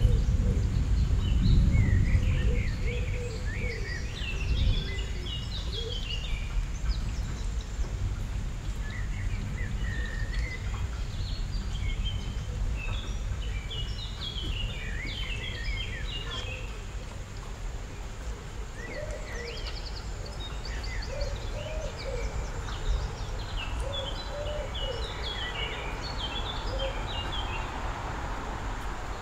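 Small birds chirping in quick clusters of short high notes that come and go every few seconds, over a steady low background rumble.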